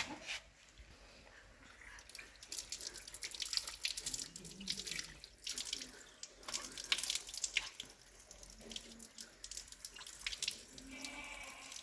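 Water running and splashing unevenly, with many short splashes.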